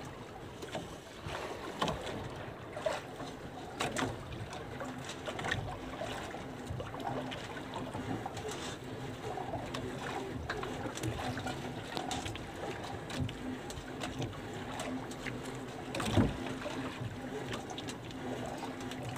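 Small fishing boat handling sounds: scattered knocks and clicks as a handline is worked over the gunwale, over a low steady hum. One knock about 16 seconds in is louder than the rest.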